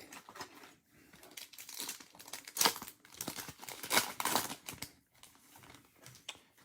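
A Topps Chrome trading-card pack wrapper being torn open and crinkled by hand, in rustling bursts that are loudest about two and a half and four seconds in.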